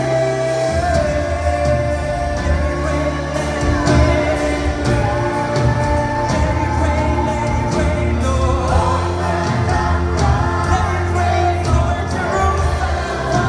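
Live contemporary worship music: a male lead singer with backing vocalists over a full band with drums. Bass comes in under the singing about a second in.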